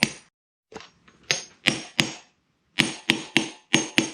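Hammer lightly tapping an inner bearing into an ADA Racing 54 mm centrifugal clutch, about nine sharp metallic taps with a short ring, in uneven groups of two or three.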